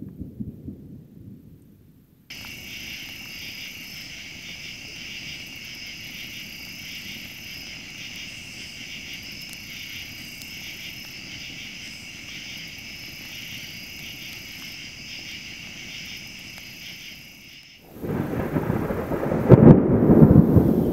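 A low rumble of thunder dies away over the first two seconds, followed by a steady chorus of night insects singing in several high, even bands. About 18 seconds in, a loud, sudden thunderclap crashes and rumbles, the loudest sound of all.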